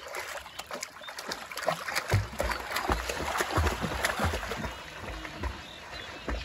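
Water splashing from a swimmer's arm strokes in a pond: irregular slaps and splashes, busiest from about a second in.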